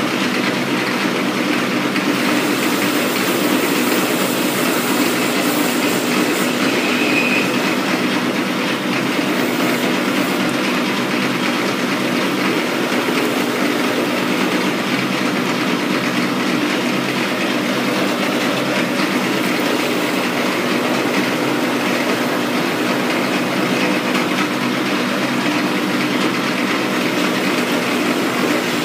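Metal lathe running under a cut, turning a steel R8 tool shank: a steady machine drone with a low gear hum. A brighter hiss comes and goes about three to six seconds in.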